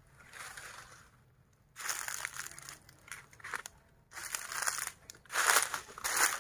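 Footsteps crunching through a thick layer of dry fallen leaves, one crunch per step, growing louder over the last couple of seconds.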